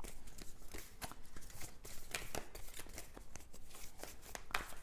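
A deck of tarot cards being shuffled by hand: a dense, irregular run of short card clicks and rustles.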